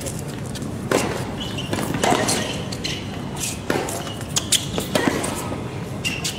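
Tennis rally: a tennis ball struck by rackets and bouncing on a hard court, several sharp hits about a second apart.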